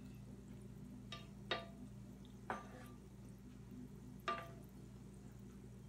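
Donuts frying in hot oil in an electric skillet, a faint steady sizzle under a low hum, with four sharp clicks, each ringing briefly, as wooden tongs knock against the pan while the donuts are turned; the last click, about four seconds in, is the loudest.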